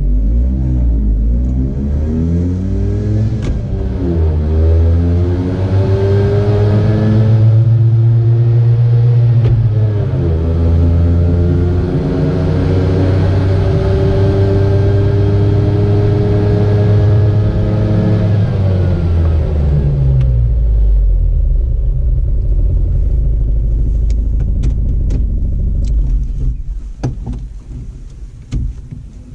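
Piaggio Ape 50's small two-stroke single-cylinder engine under way: its pitch climbs, drops back twice as if shifting gear, holds steady, then falls away about twenty seconds in to a low run. The sound dies down near the end with a few clicks. The owner hears something weird in this engine's sound.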